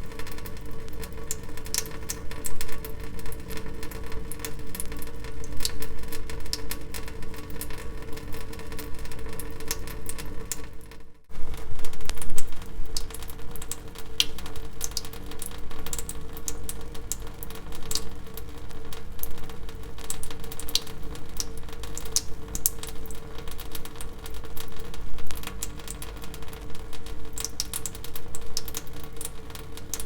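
Water dripping: a fast, irregular patter of drops over a steady hum, breaking off for a moment about eleven seconds in.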